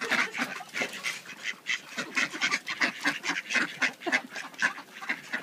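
A flock of mallard ducks quacking constantly, many short calls overlapping in quick succession.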